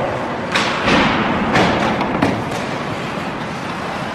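Ice hockey practice on the rink: several sharp knocks of sticks and pucks in the first half, each ringing on in the arena, over the steady scrape of skates on the ice.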